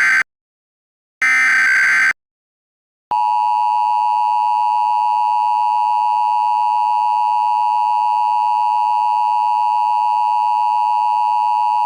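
Emergency Alert System broadcast signal: the end of one short, raspy SAME digital header burst, then another about a second in, then a pause and the steady two-tone EAS attention signal starting about three seconds in. This header-and-attention-tone sequence marks the start of a new emergency alert.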